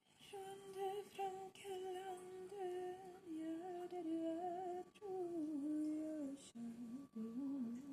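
A woman humming a slow tune in held notes, a Swedish folk song she is learning. The tune drops to a lower pitch after about five seconds.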